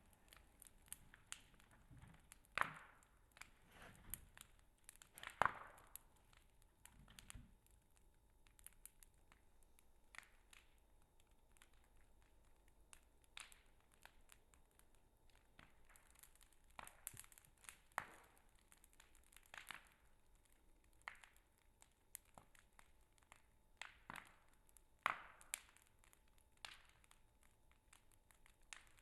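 Campfire crackling faintly, with irregular sharp snaps and a few louder pops.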